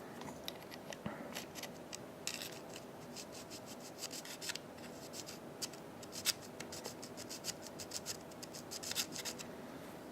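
Small metal parts of a disassembled folding knife being handled and scraped: irregular light scrapes and clicks, one sharper click about six seconds in.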